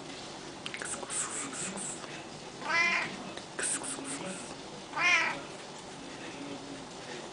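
A long-haired tabby cat meowing twice, about two seconds apart, each meow short and rising then falling in pitch.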